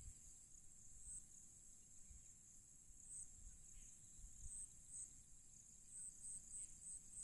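Near silence: faint room tone with a thin, high-pitched chirping that comes at irregular intervals and more often near the end.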